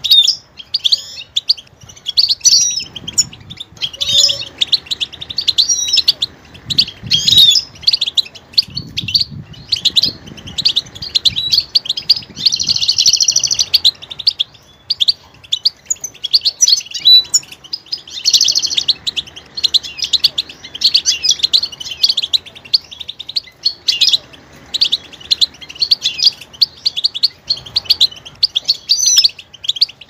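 European goldfinch singing: a long, fast twittering song of chirps and trills, broken twice by short buzzy rattling phrases.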